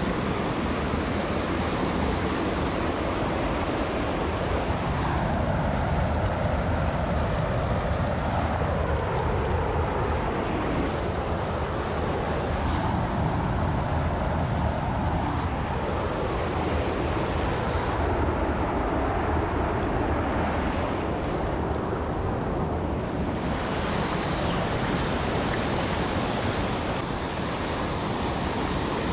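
Steady rushing water, an even, unbroken noise.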